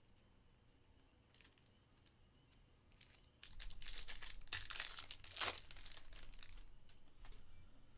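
The foil wrapper of a Topps Stadium Club Chrome baseball card pack being torn open and crinkled. A loud crackling starts about three and a half seconds in, runs for about three seconds, then dies away.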